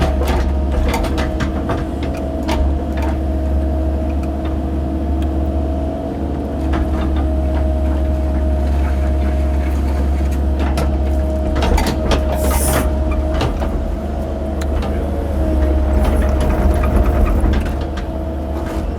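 Mini excavator's diesel engine running steadily under hydraulic load, with a steady whine over the drone, while the bucket and blade knock and scrape through dirt and debris; a brief hiss about twelve seconds in.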